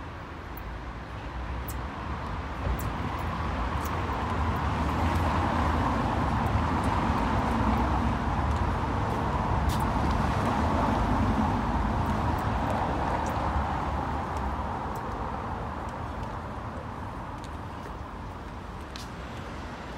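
A road vehicle passing on the street, its noise swelling over several seconds to a peak midway and then fading, with a low rumble underneath. A few faint ticks are scattered through it.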